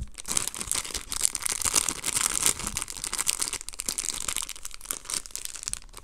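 Clear plastic overwrap of an Extra gum multipack crinkling as it is handled, a dense run of sharp crackles that thins out near the end.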